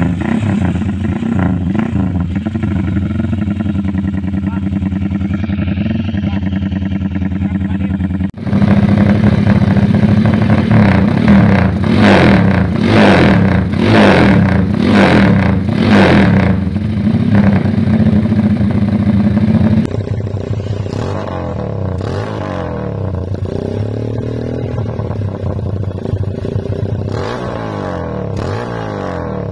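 Motorcycle engines with aftermarket stainless free-flow exhausts, heard one after another, each giving the loose, chopping exhaust beat called a 'helicopter' sound. The first idles steadily. From about eight seconds in a second, louder bike is revved in repeated short blips. From about twenty seconds in a third idles more quietly.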